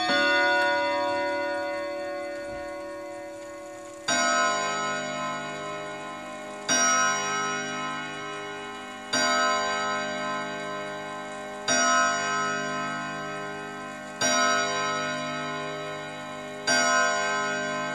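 Kienzle pendulum wall clock striking the hour on its gong rods at twelve o'clock. A ringing note dies away over the first few seconds, then come six slow, deep strikes about two and a half seconds apart, each ringing on.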